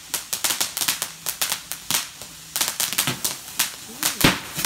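Fireworks crackling: a fast, irregular run of sharp pops and cracks, several a second, with a brief lull about halfway and a heavier bang near the end.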